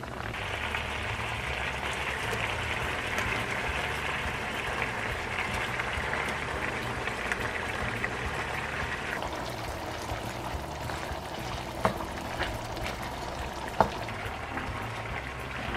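Water running steadily, cutting off about nine seconds in, followed by two sharp knocks.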